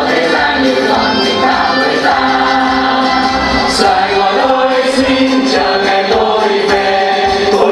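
Choir singing together in held, sustained notes over instrumental backing music with a light percussive beat.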